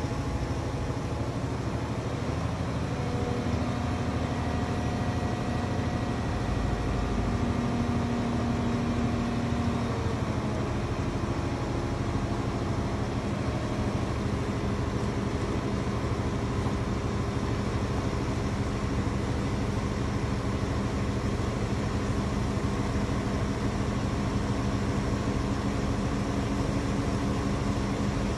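Mobile crane's diesel engine running steadily under load while hoisting a locomotive, its note shifting a few times in the first ten seconds and then holding steady.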